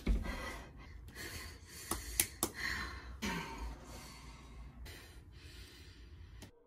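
A woman's heavy breathing and gasps, with a few short voiced breaths. Three quick sharp clicks come about two seconds in.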